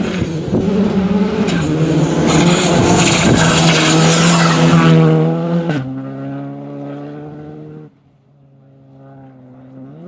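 Skoda Fabia R5 rally car's turbocharged four-cylinder engine passing close at full throttle, with a loud hiss of tyres and stones on gravel. About six seconds in, the engine note drops abruptly as the car goes by, then fades away. Near eight seconds the sound falls off sharply, and a faint engine note rises again near the end.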